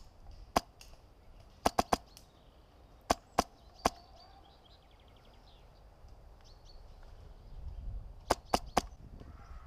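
Airsoft rifle firing single shots, each a short sharp snap: one, then three in quick succession, then three more, and after a pause of several seconds another three near the end.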